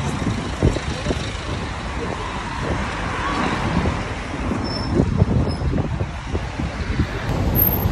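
City street traffic noise: cars and taxis passing and idling, a steady wash of road noise.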